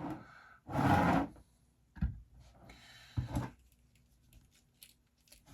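Handling noise at a soldering bench: a short loud rustle about a second in, then two sharp knocks and a few faint clicks.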